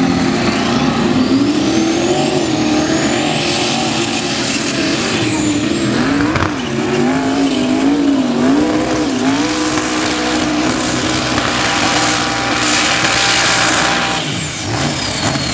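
Modified mini class pulling tractor's engine running at full throttle while dragging the weight sled, its note wavering up and down in pitch. A high whine climbs over the first few seconds and then holds. The sound dips briefly near the end.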